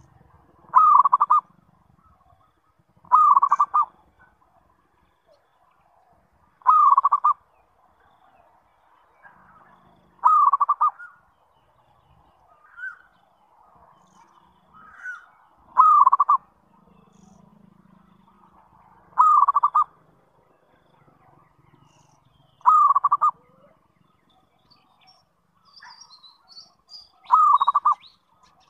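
Zebra dove (perkutut) cooing: eight short bursts of rapid cooing notes, repeated every three to five seconds.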